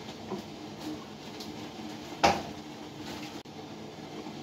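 Kitchen handling noise: a wooden cutting board set back down on the counter, with one sharp wooden knock about two seconds in and a few lighter clicks.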